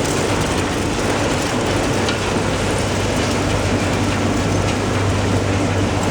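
Steady running noise of a moving vehicle, with a constant low hum under an even rushing noise.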